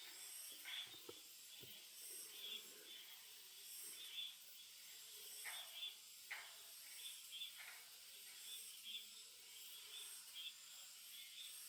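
Wild birds chirping faintly: short high notes repeated about once a second, over a steady high hiss.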